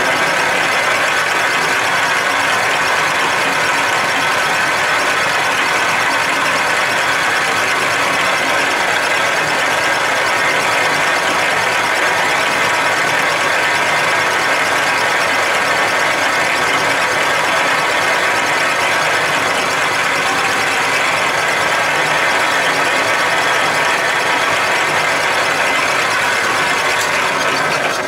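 Metal lathe running under load while a two-wheel clamp-type knurling tool rolls a knurl into a rod spinning in the chuck: a steady mechanical whine that dies away at the end as the lathe is stopped.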